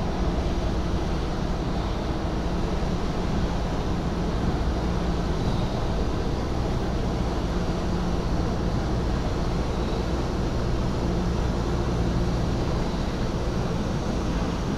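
Sakurajima car ferry Dai-juroku Sakurajima Maru passing close under power, its diesel engines a steady low drone over the wash of water churned up by its propellers.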